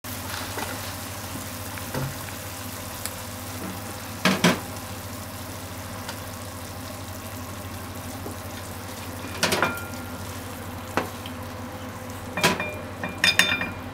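Pork and okra stir-fry sizzling in a frying pan over a steady low hum, with a couple of clacks from the pan partway through. Near the end come a quick run of clacks and clinks as the pan is tipped against a ceramic plate and the food is scraped out with chopsticks.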